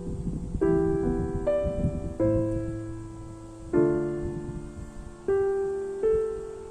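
Slow, gentle piano music: chords struck one after another about once a second, each left to ring and fade.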